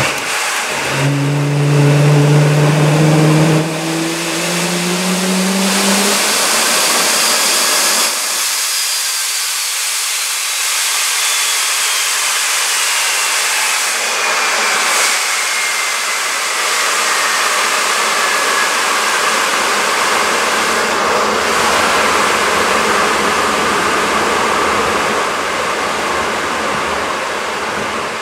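Fairchild J44 turbojet turning over during a start attempt, with a loud rushing of air through the engine. A low whine rises in pitch over the first few seconds and cuts off about eight seconds in. After that a high whine falls slowly in pitch as the rotor winds down.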